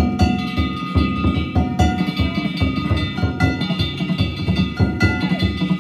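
Danjiri festival-cart music (narimono): taiko drums beating in a rapid, steady rhythm with small hand-struck gongs clanging and ringing over them.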